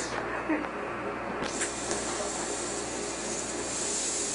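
Steady hiss of background noise with no distinct events; the top end drops out briefly in the first second and a half.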